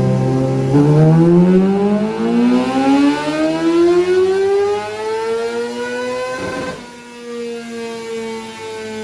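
Kawasaki ZX-6R inline-four race engine making a full-throttle pull, its note rising steadily for about five seconds. The throttle snaps shut near the end and the engine winds down with a slowly falling note, as at the end of a dyno run.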